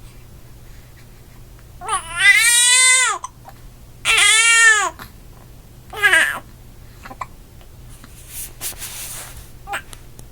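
A baby crying in three high wails, each rising and then falling in pitch: the first two about a second long, the third short.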